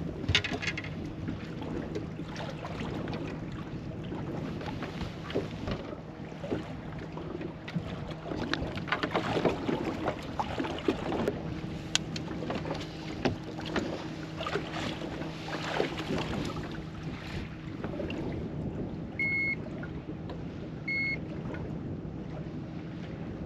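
Steady low hum of a bass boat's machinery on the water, with knocks, rattles and splashy handling noise as a freshly caught smallmouth bass is handled on deck. Two short high electronic beeps, about a second and a half apart, near the end.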